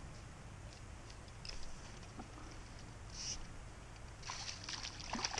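A hooked rock bass splashing and thrashing at the surface of a calm creek, a dense crackle of small splashes starting near the end. A few isolated ticks come before it, over a steady low murmur.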